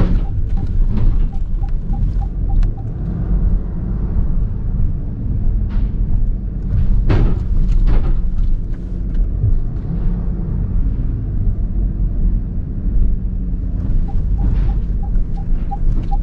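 Car rolling slowly at low speed, heard from inside the cabin as a steady low rumble. Its parking sensors beep a few times a second in two short runs, soon after the start and near the end, set off by the narrow walls close to the car. A single sharp knock comes about seven seconds in.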